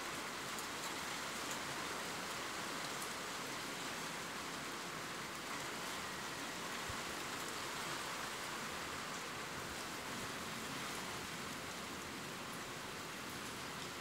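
Steady rain falling, an even hiss with faint scattered drop ticks.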